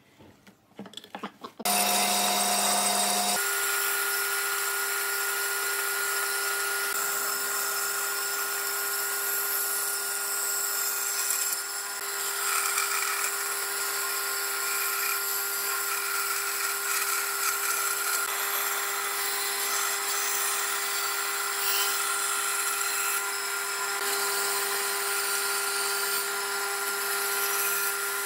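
Faint scratching of a pen on wood, then about two seconds in a band saw starts and runs with a steady hum, settling into its running note a moment later. It cuts curves in a pine board, with small swells in the noise as the blade bites.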